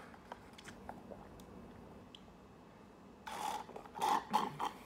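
Sucking milk through a straw from a small drink carton. Quiet at first, then about three seconds in comes a run of noisy slurps as the carton runs dry and the straw draws air.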